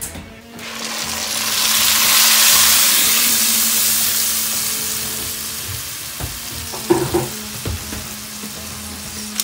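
Blended tomato liquid hitting pasta shells toasted in very hot oil: a loud sizzle that builds over the first two seconds, then slowly dies down. A few light knocks about seven seconds in.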